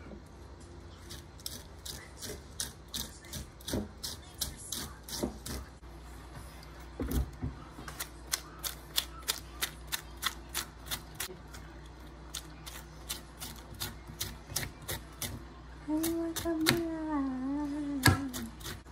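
Metal fork scraping the flesh off a peeled pineapple in quick, repeated strokes, each a short scratching click, about three to four a second at times. Near the end a person's voice is heard briefly, with one louder click just after it.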